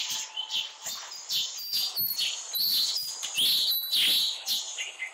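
Small birds chirping busily, several short chirps a second, with a few clear whistled notes partway through.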